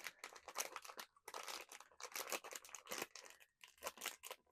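Pop Mart blind box packaging being opened by hand: crinkling and tearing in several bursts with short pauses between.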